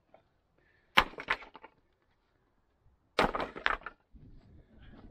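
Flat stones from a dry-stone wall landing on other stones: two clattering crashes, about a second in and about three seconds in, each a sharp knock followed by a quick run of smaller clinks as the stones settle.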